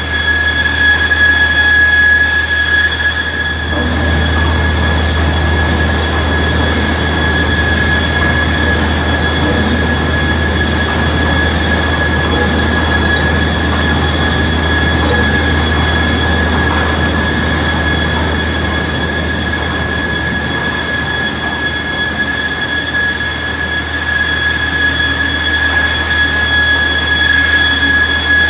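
Newman PM-1600 high-speed planer matcher running in production with lumber feeding through. It makes a steady high whine over a low hum and a rough mechanical din.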